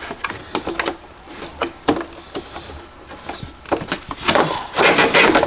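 Plastic air filter housing and filter being handled as the engine air filter is worked out of its box. Scattered light knocks and clicks, then a louder scraping rustle about four seconds in as the filter comes free.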